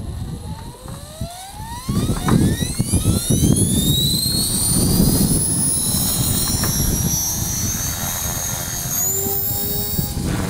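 Align T-Rex 450 electric RC helicopter spooling up and lifting off: its motor and gear whine rises steeply over the first few seconds, then holds high and steady under a loud rush of rotor wash that comes in about two seconds in.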